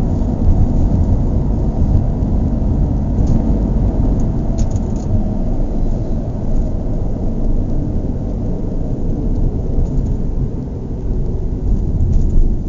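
A car driving along, heard as a loud, steady low rumble of engine and road noise.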